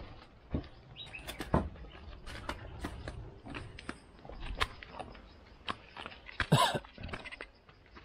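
Irregular footsteps scuffing and crunching as people climb a steep dirt trail over roots and dry leaves. About six and a half seconds in there is a short pitched sound that slides up and down.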